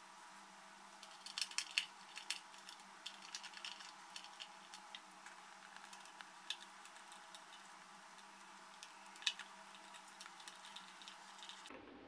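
Faint, scattered clicks and taps of control wires being handled and fitted into the screw terminals of plastic relay sockets and a contactor. A cluster of clicks comes a couple of seconds in and another near the end.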